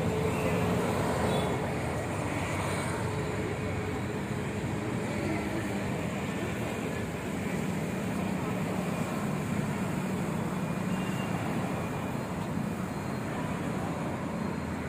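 Steady vehicle and road-traffic noise: a continuous engine hum and rumble, with no distinct events.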